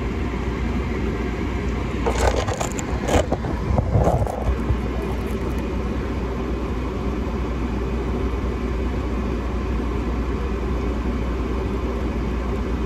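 Car running with a steady low rumble, with a few sharp knocks and clatters about two to four seconds in.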